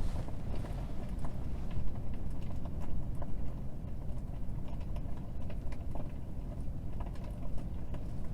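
Crackling-fire sound effect from the Tesla Model S fireplace mode, played through the cabin speakers: irregular small pops and crackles over the steady rush of the climate system blowing hot air from the vents.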